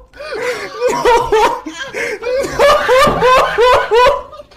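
A person crying hard, in repeated high-pitched sobbing wails that break every fraction of a second.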